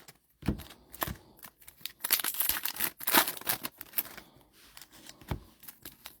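Trading card packs being handled and opened: foil wrappers crinkling and tearing and cards sliding against each other, in irregular rustles and clicks with a few soft thumps.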